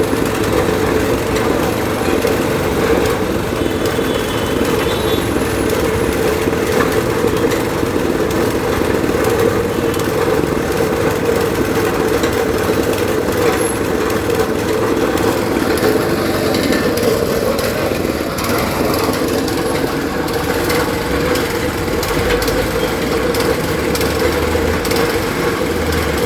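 Petrol-engine-driven air compressor running steadily, with a fast, even mechanical chatter.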